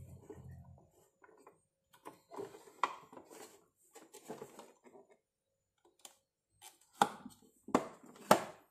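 Plastic push-down vegetable chopper being worked: light rustling and clatter as a peeled boiled egg is set on its steel blade grid, then a few sharp plastic knocks near the end as the lid is pressed down, pushing the egg through the blades.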